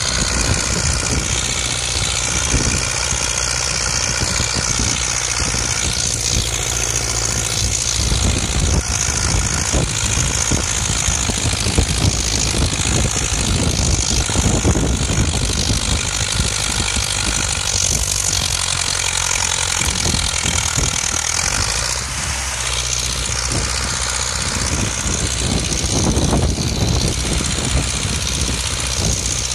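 Zetor 5718 tractor's three-cylinder diesel engine running steadily under load as it pulls a reversible plough through the soil.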